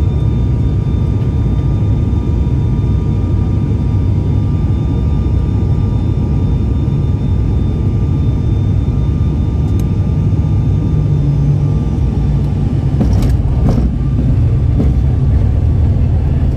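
Cabin noise of an ATR 72-500's turboprop engines and propellers during landing: a steady low drone with a few thin whining tones over it. About thirteen seconds in come a couple of knocks as the wheels meet the runway, and the noise grows slightly louder after them.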